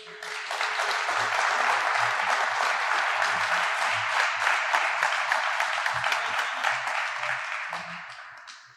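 An audience applauding. The clapping swells within the first second, holds steady, then dies away near the end.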